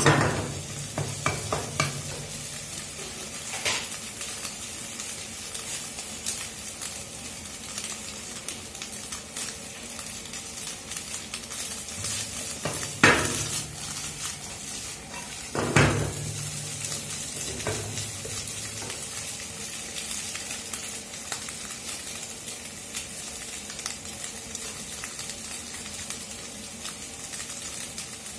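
Scrambled egg sizzling in a hot nonstick frying pan, stirred and scraped with a wooden spatula. Two louder clatters about halfway through as the pan is tossed and carrot strips go in.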